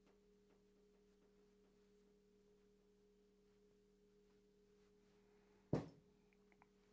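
Near silence: a faint steady low hum, broken by one sharp click near the end.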